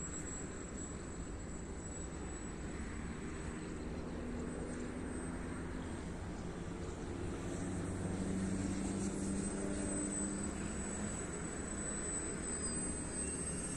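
The electric motor and propeller of a 3D-printed RC scale model of the Aichi M6A Seiran, flying at a distance. It is a faint drone whose pitch shifts up and down, growing a little louder past the middle.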